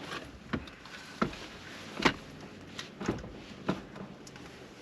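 Plastic surround of an aftermarket head unit being pressed and clipped into a Subaru WRX dashboard: a string of about half a dozen sharp clicks and knocks, the loudest about two seconds in.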